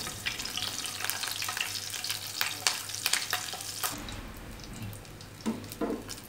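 Tadka sizzling with sharp crackles: cumin seeds, dried red chillies and green chillies frying in hot oil in a small saucepan as it is swirled. The sizzle drops off and thins about four seconds in.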